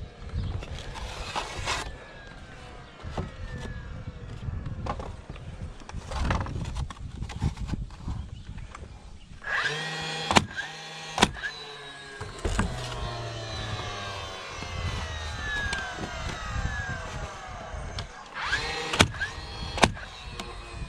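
Cordless narrow-crown stapler firing staples into wood roof shingles: several sharp shots, a pair about halfway through and more near the end, with shingles scraping and clattering as they are laid in between.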